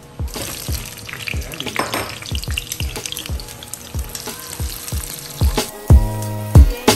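Thick onion slices sizzling in hot oil in a pot, a steady crackling hiss, under background music with a steady beat. About five and a half seconds in the sizzle stops and the music comes up louder.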